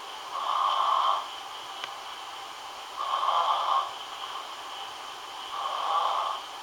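Snoring in a slow, even rhythm: three rasping breaths, each under a second long, coming every two and a half to three seconds over a faint steady hiss.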